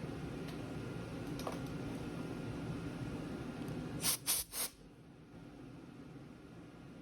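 Milling machine running with a steady low hum; about four seconds in, three short, loud hissing blasts come in quick succession, and then the running sound stops, leaving faint room noise.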